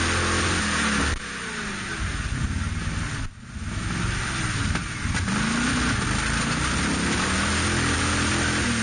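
Modified Jeep CJ's engine revving hard in repeated bursts as it drives through a deep mud pit, its pitch rising and falling. The sound drops sharply about a second in and cuts out briefly a little after three seconds.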